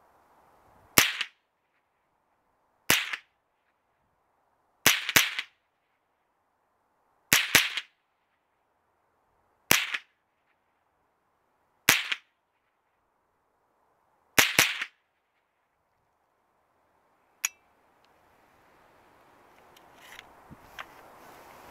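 Kriss Defiance DMK22 .22LR semi-automatic rifle firing supersonic CCI Velocitor high-velocity rounds one at a time: about eight sharp shots, one every two seconds or so, the action cycling cleanly after each. A lighter single click comes a few seconds after the last shot.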